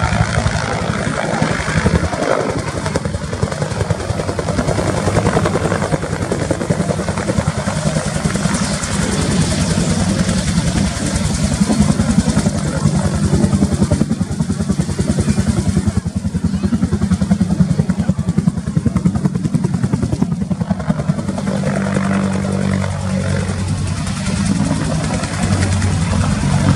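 AH-1W SuperCobra attack helicopter in flight, its two-bladed main rotor beating in a rapid, continuous chop with a steady engine drone beneath.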